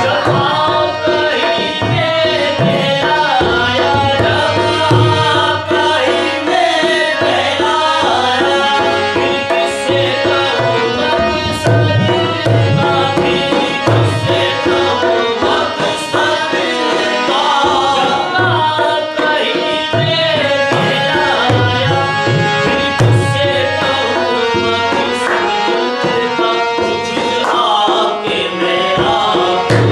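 Qawwali: a man singing a wavering melodic line over tabla accompaniment, the tabla's low drum strokes keeping a steady rhythm.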